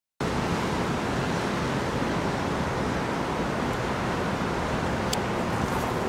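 Steady rushing background noise, an even hiss with a low rumble and no bird calls, with one brief sharp tick about five seconds in.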